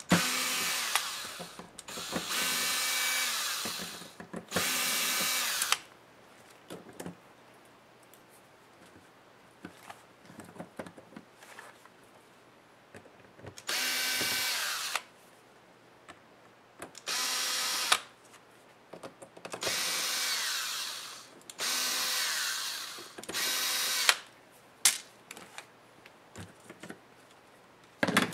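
Cordless electric screwdriver backing out the small hinge-bracket screws of a laptop's display lid, running in short bursts of one to two seconds about eight times. Quiet clicks of screws and parts being handled come between the bursts.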